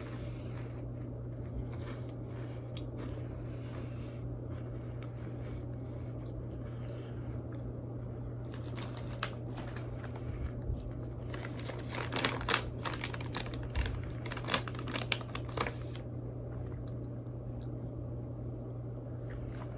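Crackers and their packaging crinkling and crunching in a run of sharp crackles, mostly between about nine and sixteen seconds in, over a steady low electrical hum.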